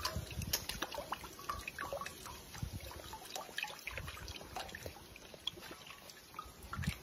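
Faint, irregular drips and small splashes of water in a shallow stone trough as a dog dips its muzzle in and lets a fish go.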